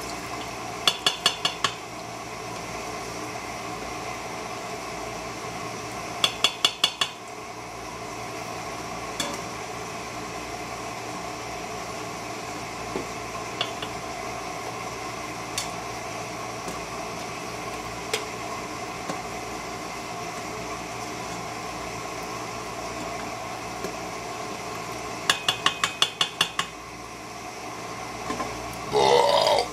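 A plastic slotted skimmer knocking against the rim of a stainless steel Instant Pot inner pot, in three bursts of about half a dozen quick taps, with a few single light knocks between, while chicken cubes are scooped from the broth. A steady hum runs underneath, and near the end there is a short, louder rattle.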